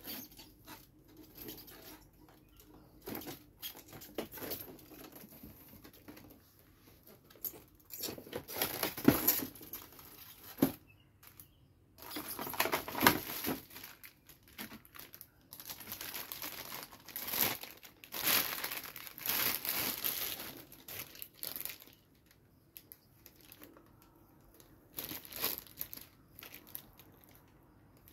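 Clear plastic packaging crinkling and rustling as it is handled and pulled off toy parts. It comes in irregular bursts with quiet gaps and is loudest and longest past the middle.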